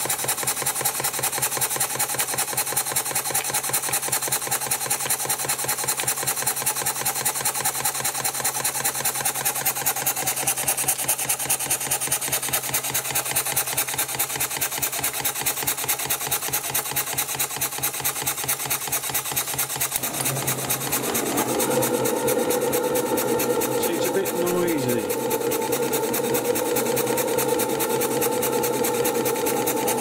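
Model horizontal live-steam engine running fast under steam, its exhaust chuffing in a quick, even rhythm with the knock of worn, sloppy main bearings. About twenty seconds in, a steady humming hiss joins in.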